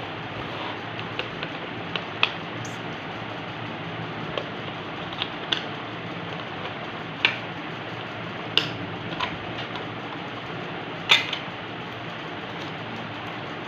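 Scattered sharp clicks and taps of a toy box and its plastic contents being handled during unboxing, over a steady background hiss; the loudest tap comes about 11 seconds in.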